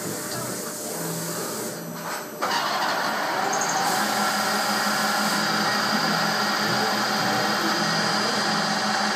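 CNC lathe running, its spindle turning a brass workpiece. About two and a half seconds in, the machine noise suddenly gets louder into a steady hissing drone with a few constant tones.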